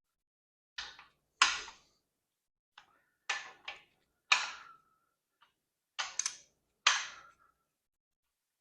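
Hand tools clinking on the main bearing cap bolts of a small-block Chevy 305 as the bolts are snugged down: about ten sharp metallic clinks, some in quick pairs, each ringing briefly.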